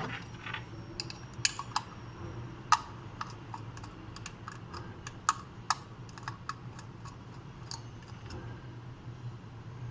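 Irregular small clicks and taps of hands handling a door-sensor lead and a plastic controller while connecting the wires to its terminals, over a steady low hum.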